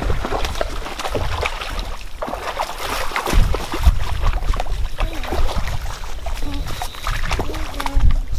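Outdoor handling noise at the water's edge: wind rumble on the microphone with rustling and clicking, and light sloshing of water.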